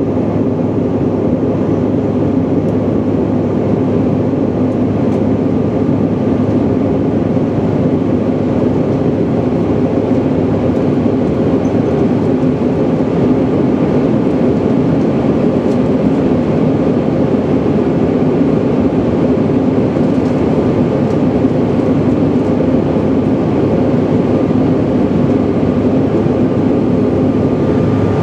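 Jet airliner cabin noise at cruise speed: a steady rush of engine and airflow noise with a low, even hum underneath.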